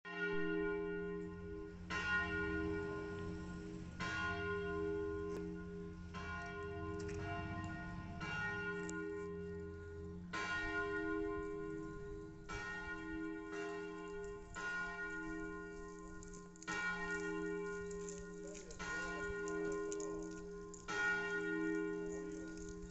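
Large church bells in a tower swinging and ringing, with a new stroke about every two seconds. Each stroke rings on into the next over a deep, steady hum.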